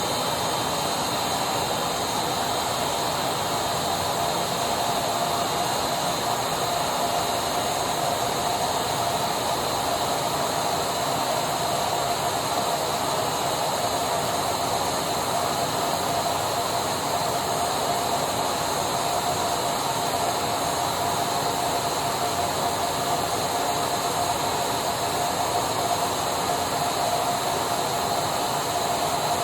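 Electric vacuum cleaner running steadily: a constant rush of air and motor whine with a steady tone, holding the same pitch and level.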